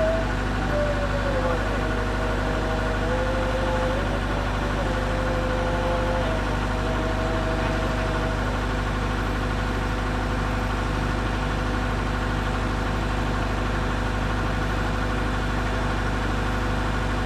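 Case Super L backhoe loader's diesel engine idling steadily. A wavering whine steps up and down in pitch through the first half and fades out about eight seconds in.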